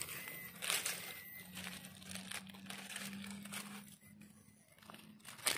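Dry fallen leaves and twigs rustling and crackling as mushrooms are picked by hand from the forest floor. There are irregular crunches, with a sharper crackle near the end, over a faint steady low hum.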